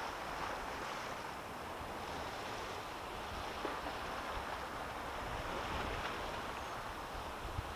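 Small waves lapping on the sea surface with wind buffeting the microphone, a steady, even wash of noise with a low uneven rumble.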